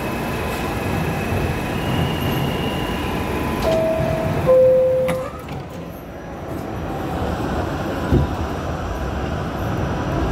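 Inside a New York City subway car: the two-tone door chime sounds about four seconds in, high note then lower note, then the car goes quieter and the train starts pulling out of the station, its low rumble building.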